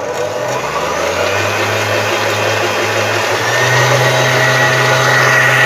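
Kitfort stand mixer starting up and running steadily, its whisk beating egg whites in the steel bowl. The motor's hum steps up in pitch a little past halfway.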